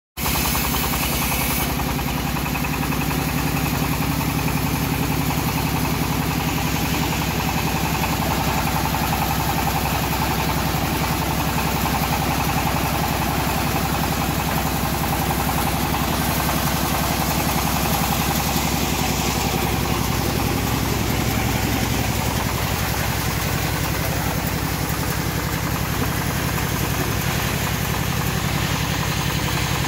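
Engine powering a home-built bandsaw sawmill, running steadily at constant speed.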